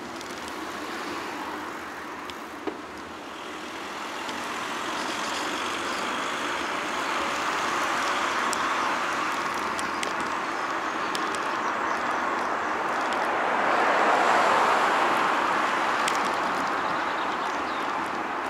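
Road traffic noise: a steady rush of passing vehicles that grows louder through the middle and peaks about three-quarters through before easing off, with a few faint clicks.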